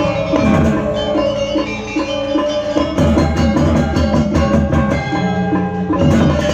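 Balinese gamelan ensemble playing a Bebonangan-style piece: struck bronze gong-chime tones over drums. It thins to a lighter passage about half a second in, and the full ensemble comes back in about three seconds in.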